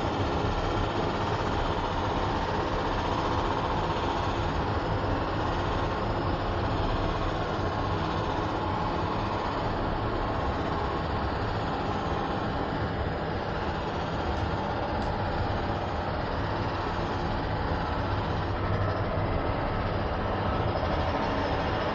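Steady rumble and hum of a cable car cabin in motion along its cable, even throughout with no sudden events.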